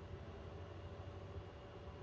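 Quiet room tone: a faint, steady low hum and hiss with no distinct sound.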